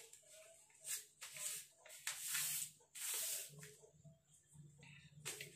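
Sheet of drafting paper rustling on a table as it is handled, in several short bursts.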